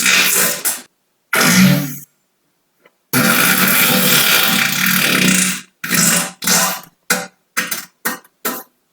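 A string of loud, buzzy farts from air drawn into the rectum and pushed back out. Two short ones come first and then, after a pause of about a second, a long one of about two and a half seconds. A quick run of seven short ones closes it.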